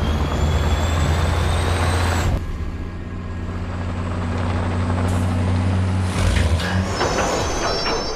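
Heavy construction trucks' diesel engines running, with a high whine rising slightly over the first couple of seconds and a high squeal near the end.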